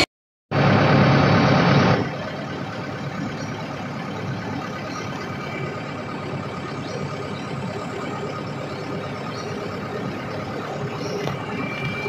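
Heavy logging truck's diesel engine running steadily as the truck approaches slowly along a dirt road, still some way off. The sound starts after a brief gap and is louder for the first second and a half, then settles to an even drone.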